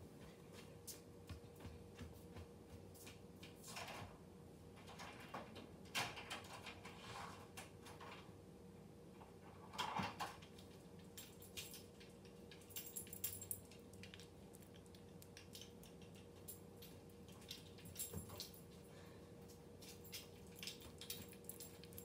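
Quiet room tone with a faint steady hum, and scattered faint knocks and clatter of distant household movement, a little louder about ten seconds in.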